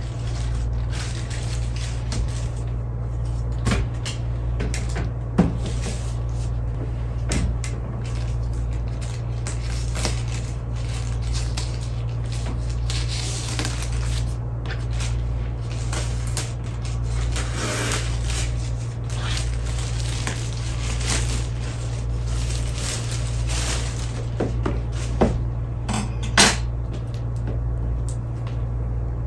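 A plastic mailer bag rustling and crinkling as it is cut open with scissors, with scattered knocks and clicks as the package and a cardboard box are handled on a tabletop. A steady low hum runs underneath.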